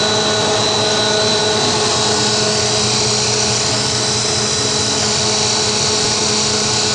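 Dog food extruder machinery running: a loud, steady mechanical whine with a high tone over a machine hum.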